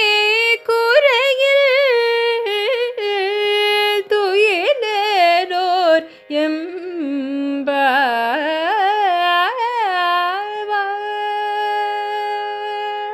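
A woman singing a Tamil devotional verse in Carnatic style, her voice sliding through ornamented pitch bends, then settling on one long held note.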